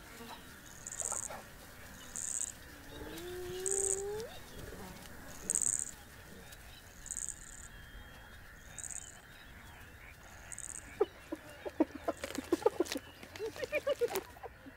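Spotted hyenas calling: a single rising whoop about three seconds in, then a fast run of short calls near the end. A high chirp repeats about every second and a half behind them.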